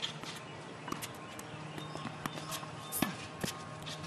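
Tennis ball being struck by rackets and bouncing on a hard court during a rally: a string of sharp pops about a second apart, the loudest about three seconds in, over a faint steady hum.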